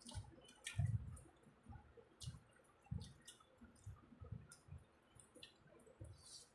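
Close-up eating sounds of biryani being chewed: irregular wet clicks and smacks of the mouth with soft low thuds, about one or two a second.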